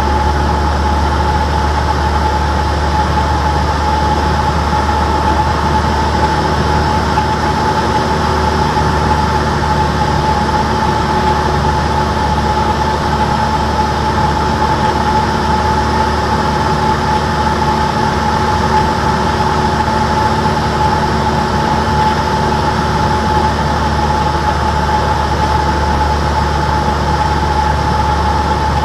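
Cessna 172's engine and propeller running steadily in flight, heard inside the cabin: an even low drone with a steady high whine over it.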